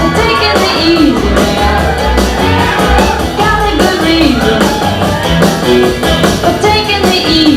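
Loud rock and roll dance music with guitar and a steady drum beat, and some singing.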